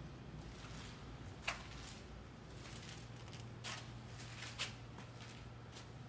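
Faint footsteps on a freshly refinished, glossy solid vinyl floor: a handful of short shoe-sole scuffs, the clearest about one and a half, three and a half and four and a half seconds in, over a steady low hum.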